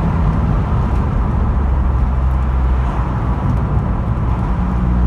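Car engine and road noise heard from inside the cabin while driving: a steady low engine drone over tyre rumble, growing stronger near the end.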